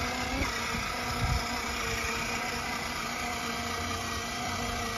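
Small electric motor of a toddler's battery-powered ride-on motorcycle, running with a steady whine that dips slightly in pitch about half a second in. The mother takes the sound for a battery that was not charged enough, so the ride-on won't go far.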